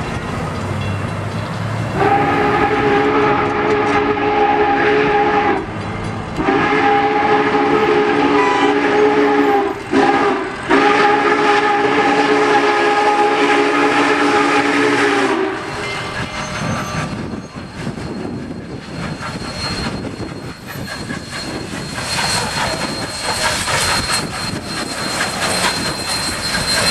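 Union Pacific 844's steam chime whistle, a 4-8-4 steam locomotive, sounding long, long, short, long: the grade-crossing signal. After the whistle stops, the locomotive and train roll past with a rumble that grows louder near the end.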